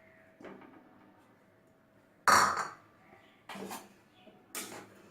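A metal spoon or ladle clanking against a kadhai as jaggery is stirred in water to melt it: three separate clanks, the loudest about two seconds in.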